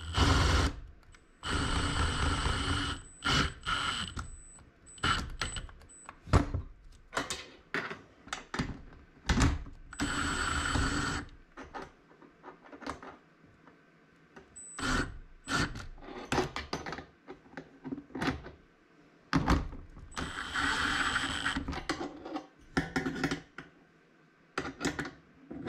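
Milwaukee M18 cordless impact driver with a socket, tightening the bolts of a roof-rack mount. It runs in a few bursts of a second or two, with many short trigger blips between them.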